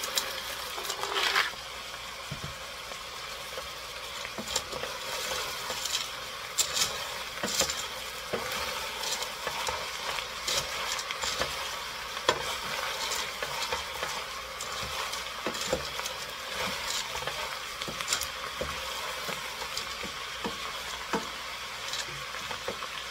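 Dry macaroni poured into a stainless steel stockpot for about the first second and a half, then a wooden spoon stirring and scraping the pasta and vegetables around the pot, over a steady sizzle of vegetables frying in oil.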